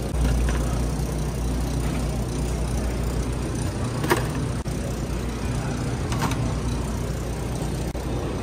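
Steady low hum of a refrigerated bakery display case, with a few light clicks and rattles. The sharpest click, about four seconds in, comes as a packaged item is set into a wire shopping basket.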